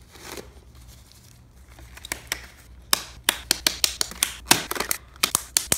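Disposable latex gloves pulled from their box and worked onto the hands: a soft rustle at first, then from about three seconds in a quick, irregular run of sharp snaps and slaps of the stretched latex.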